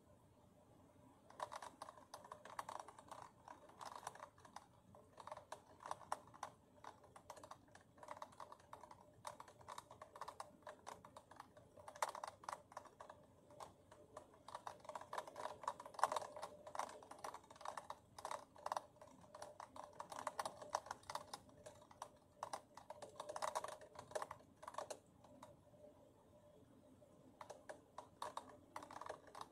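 Faint, rapid, irregular light tapping in quick runs, with a brief lull near the end.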